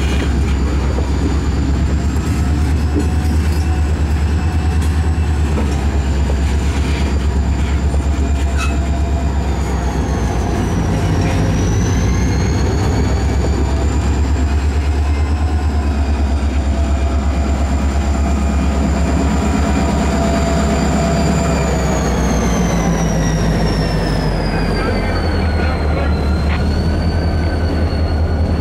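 Freight train rolling slowly: open hopper cars rumbling over the rails, pushed by the diesel engine of CSX locomotive 6432, which passes about halfway through. High squealing from the steel wheels slides up and down in pitch over the low, steady engine hum.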